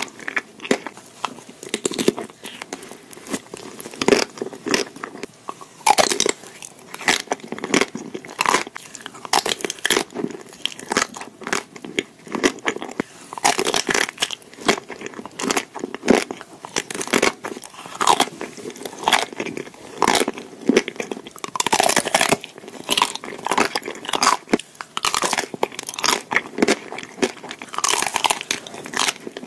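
Close-miked biting and chewing of chocolate-coated ice cream bars: the hard chocolate shell cracks and crunches in many quick sharp snaps between softer wet chewing.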